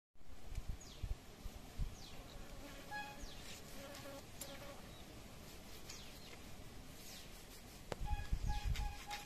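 Hands rubbing small fish against a rough stone slab, heard as low scuffing and thumps, while birds call with short high falling chirps. Background music with steady tones comes back near the end.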